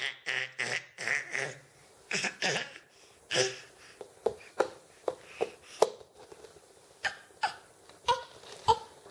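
Baby laughing and babbling in a string of short bursts, with brief sharp squeaks and breathy sounds in the second half.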